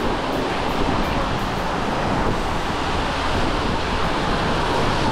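Steady rush of moving water at a water park, with wind on the GoPro's microphone.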